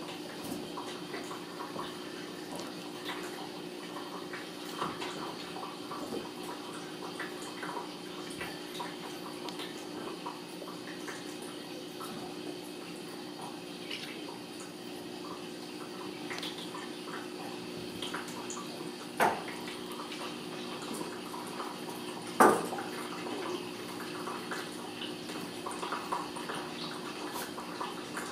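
Two Ragdoll kittens play-wrestling on a rug: scattered small scuffles, claw taps and clicks, with two louder knocks a few seconds apart about two-thirds of the way through, over a steady low hum.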